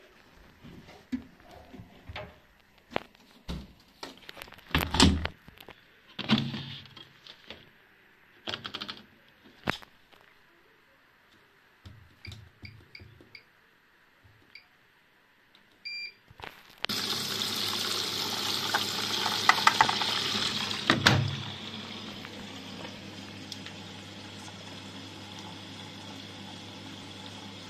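Siemens front-loading washing machine starting a wash: a few thumps and clicks as the door is shut, short beeps as panel buttons are pressed, then the water inlet valve opens and water rushes in loudly for a few seconds. After a thunk it settles into a quieter, steady filling rush with a low hum.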